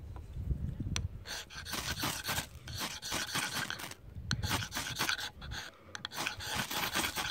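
Ferrocerium rod scraped hard with a metal striker, repeated quick rasping strokes in three bouts, throwing sparks to light birch bark tinder.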